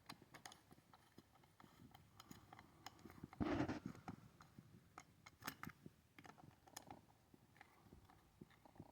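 Faint, scattered clicks and taps of small metal parts being handled as the muffler's Torx bolts are threaded in by hand on a chainsaw, with one brief louder scuff about three and a half seconds in.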